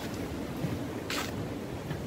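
Footsteps on wooden boardwalk planks strewn with dry leaves, one crisp step about a second in, over a steady low rumble of wind on the microphone.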